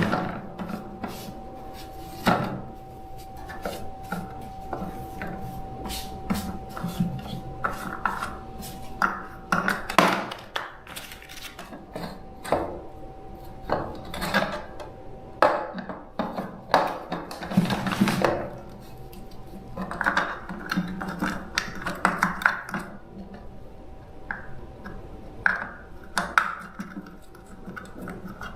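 Irregular clinks, taps and scraping of tools and small parts being handled on a workbench, over a faint steady whine.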